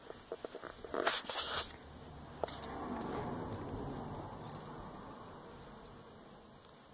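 Boston Terrier puppy hiccupping: a few short, sudden hics about two seconds apart. A burst of light clinking and rustling about a second in is the loudest sound.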